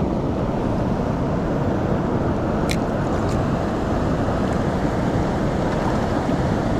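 Water rushing steadily over a spillway at full flow, with a couple of faint clicks about three seconds in.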